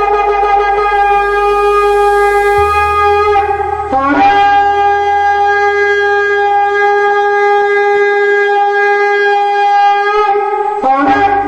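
Shofar (ram's horn) blown in long sustained blasts: one held note, a brief break about three and a half seconds in, then an upward slide into a second long note held for about six seconds, and a fresh blast starting just before the end.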